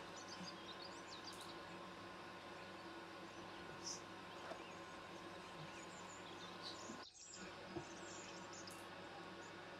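Small birds chirping faintly over a steady low hum, with a few soft clinks as food is served onto plates.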